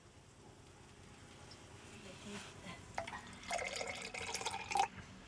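A thin stream of liquid poured into a bamboo cup, starting about three and a half seconds in with a held, slightly rising filling tone, and stopping just before the end.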